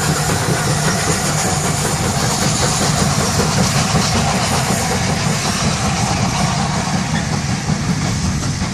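Two steam locomotives double-heading a train past close by, an LNER A4 Pacific leading a GWR King class 4-6-0: steam exhaust and wheel and rail noise, followed by the coaches rolling past. The sound eases a little near the end.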